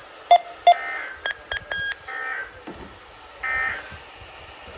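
Handheld radio's keypad beeping as its buttons are pressed: a quick run of short electronic beeps in the first two seconds, then two longer beep tones a little later.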